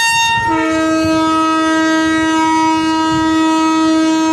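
Electric locomotive horn sounding: a higher note that stops about half a second in, then a long, steady lower note held to the end.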